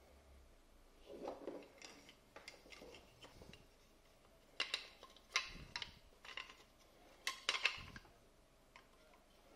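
Black plastic handle shell and copper jaw of a welding electrode holder being handled and fitted together: a soft rustle, then sharp plastic clicks and clacks in two quick clusters, the loudest in the second half.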